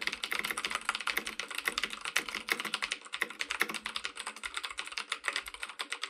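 Fast multi-key typing on a WASD V2 mechanical keyboard with Cherry MX Blue switches and ABS keycaps on a metal backplate: a dense, continuous run of clicky keystrokes.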